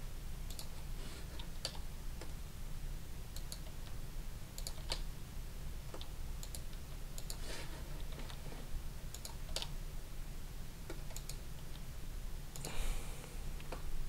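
Scattered, irregular clicks of a computer mouse and keyboard keys over a steady low hum from the recording setup. A short rush of noise comes near the end.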